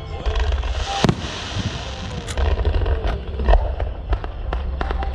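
Aerial fireworks bursting: a string of sharp bangs at irregular intervals, the loudest about a second in and a little past the middle.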